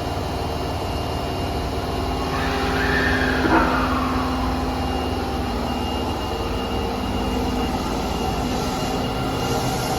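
Tanimachi Line subway train moving through an underground station: a steady electric motor and inverter whine with several held tones. A pitch sweep rises and then falls about two to four seconds in, with the loudest moment around three and a half seconds.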